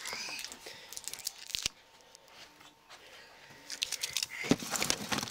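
Rummaging in a storage bin: rustling and small clicks and knocks of things being moved about by hand, sparse at first, then denser and louder in the last second or so.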